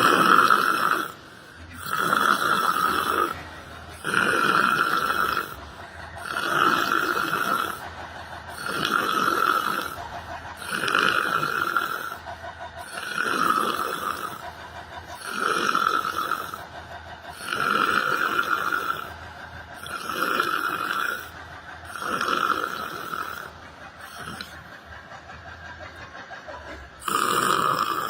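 A person snoring in a steady rhythm, about one snore every two seconds. Near the end comes a pause of a few seconds, then one more snore.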